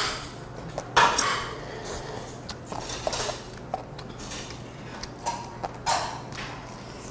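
Crunching and chewing of crispy fried chicken held by hand: a series of short sharp crackles and mouth sounds, the loudest crunch about a second in.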